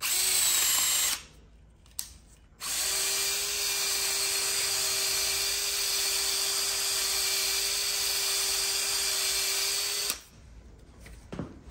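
Drill spinning a ball hone, lubricated with ATF, in a lifter bore of a 6.0 Powerstroke cast-iron engine block, lightly deburring it and cleaning off surface rust. A run of about a second, a pause, then a steady run with an even hum for about seven seconds before it stops.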